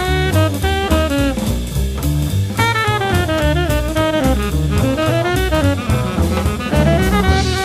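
Jazz trio of tenor saxophone, upright double bass and drum kit playing: the tenor sax runs a line of quick, shifting notes over walking bass notes and a steady drum and cymbal pulse.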